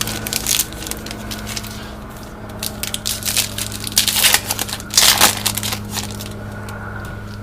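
Plastic baseball card pack wrapper crinkling and crackling as it is handled and torn open, in irregular bursts that are loudest toward the second half, over a steady low electrical hum.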